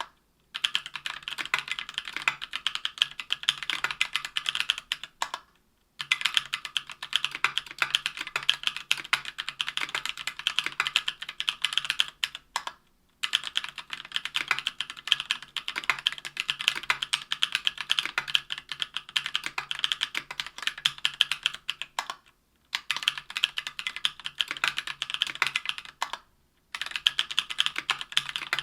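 Continuous typing on a mechanical keyboard with stock, unlubed Durock Anubis 65 g tactile switches in a Tofu 60% aluminium case with an aluminium plate and GMK keycaps: a quick, steady stream of keystroke clacks. It stops for about half a second a few times.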